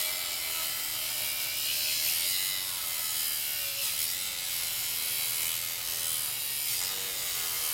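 Angle grinder with a thin cutoff disc cutting through the steel wall of an oxygen-tank cylinder: a steady, hissing grind with a faint motor whine that wavers in pitch as the disc is loaded in the cut.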